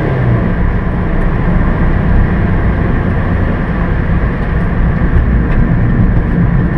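Steady in-cabin driving noise of a Suzuki Swift on the move: engine, tyre and wind noise heard from inside the car, heaviest in the low end and holding even throughout.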